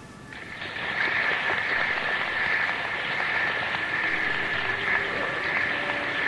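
Theatre audience applauding, swelling up within the first second after the musical number ends.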